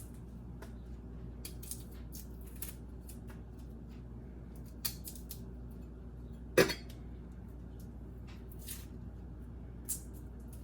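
Kitchen handling sounds: scattered light rustles and clicks over a low steady hum, with one sharp knock about six and a half seconds in.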